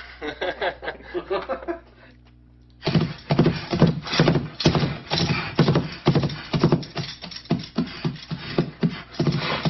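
Playback of a Foley horse track: steady clip-clop hoofbeats with a jingling bridle, starting about three seconds in.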